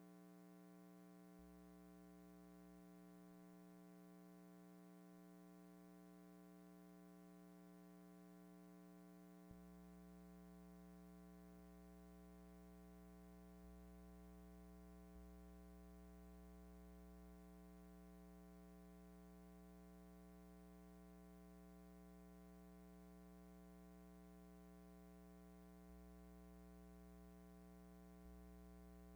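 Near silence: only a faint, steady hum on the soundtrack, with no sound from the filmed scene.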